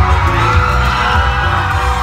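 Crowd cheering and whooping over loud dance music with a pulsing bass beat.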